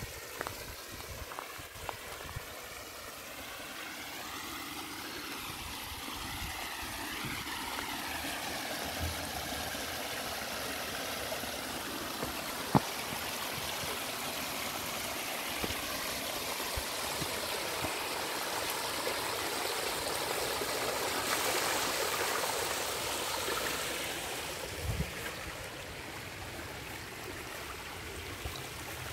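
Water running and trickling over rocks in a small artificial waterfall and shallow stream. The sound grows steadily louder for most of the time, then eases off near the end. One sharp click comes about halfway through.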